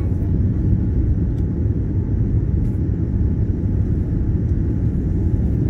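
Steady low rumble of an airliner's engines and airflow, heard inside the passenger cabin shortly after takeoff, with a faint steady whine above it.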